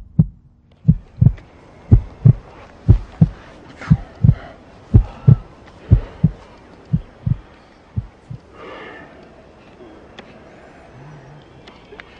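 Heartbeat sound effect: paired lub-dub thumps, about one pair a second, that stop about eight seconds in. Faint soft rushes of noise follow, the last one near the end.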